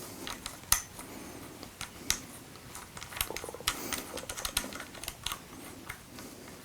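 Irregular light clicks and taps from handling a compact pistol light as its battery cap is screwed back down, with a sharper click about three-quarters of a second in and another about two seconds in.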